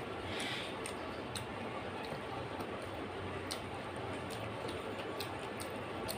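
Fingers mixing rice and dal on a plate, giving scattered light, irregular clicks over a steady background hiss.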